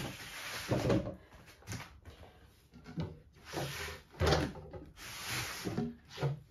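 Black boxes being picked up, shifted and set down on artificial turf: several dull, hollow knocks, with brief scraping between them.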